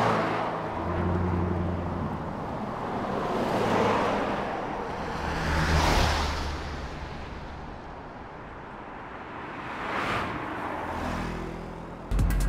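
Cars passing on a road one after another. Each pass swells and fades, about four in all, over a low steady hum.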